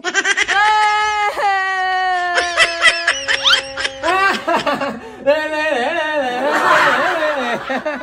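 Exaggerated wailing and laughing in human voices: long held cries that bend in pitch, giving way about five seconds in to wobbling, laugh-like sounds.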